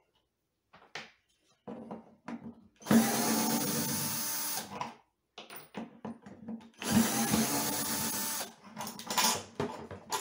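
A power drill runs in two bursts of about two seconds each, steady in pitch, with small handling knocks and clicks before, between and after.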